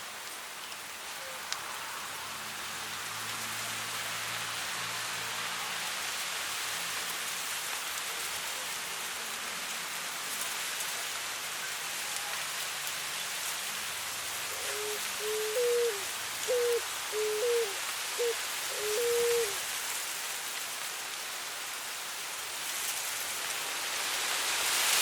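Steady wind rustling through dry grass, rising near the end. Around the middle a cuculí dove calls a phrase of about six short, low hooting coos.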